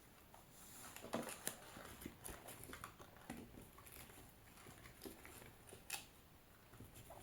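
Faint scattered light clicks and short rustles, as of small things being handled, over quiet room tone.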